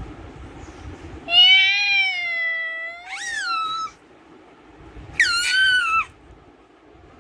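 Three meow-like animal calls. The first is long and nearly level, the second rises then falls, and after a pause a third, shorter one comes near the end.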